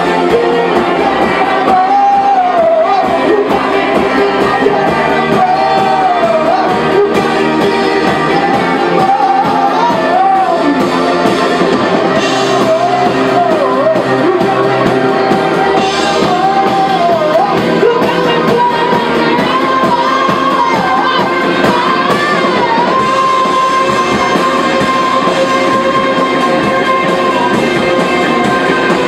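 Live psych-rock band playing loud, with electric guitar and a sung melody that wavers up and down. Near the end the melody settles into one long held high note.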